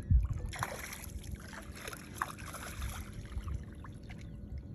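Water splashing at the surface beside a small boat for a couple of seconds while a fish is fought on rod and line, over a steady low rumble of wind on the microphone, with one sharp thump right at the start.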